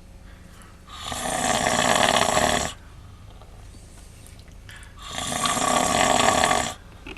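A man snoring loudly in his sleep: two long snores, each building over about two seconds and then cutting off, the first about a second in and the second about five seconds in, with quieter gaps of breathing between.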